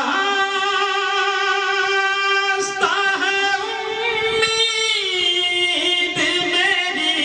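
A man singing a devotional Urdu naat into a microphone, drawing out long held notes with vibrato and ornamented turns. There is a short break about three seconds in, and the line steps down in pitch about five seconds in.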